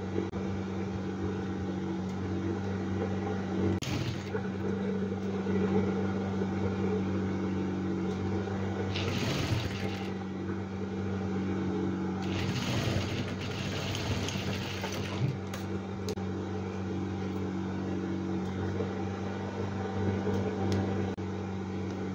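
Industrial sewing machine running steadily, stitching a seam, with a constant low hum. Rustling of fabric being handled about nine seconds in and again around thirteen seconds.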